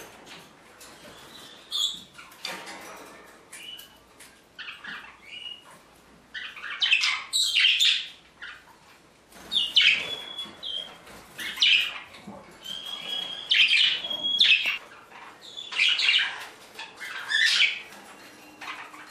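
Pet budgies chirping and squawking in short, repeated calls, sparse at first and busier from about six seconds in.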